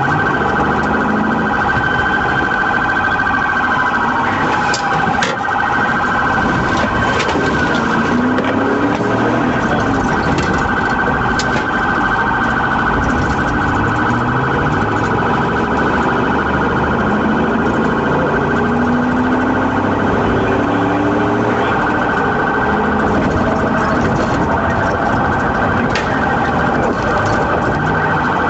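Police car siren sounding continuously in a fast, rapidly pulsing wail, with engine and road noise beneath.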